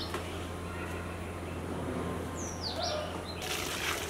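A bird gives a short, quickly falling chirp about two and a half seconds in, over a steady low hum. Near the end, water starts splashing and streaming as rice is drained through a perforated ladle back into a large pot of cooking water.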